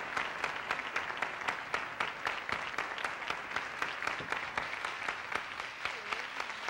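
Studio audience applauding, many hands clapping steadily with sharper individual claps standing out throughout.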